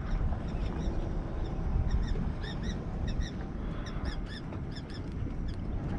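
A bird calling in quick runs of short, high chirps, several times, over a steady low rumble of wind and water.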